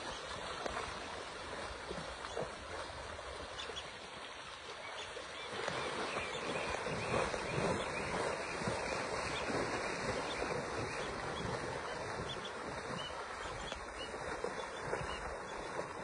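Shallow river water splashing and rushing as hippos wade through it, with wind noise on the microphone; the splashing gets louder about five and a half seconds in.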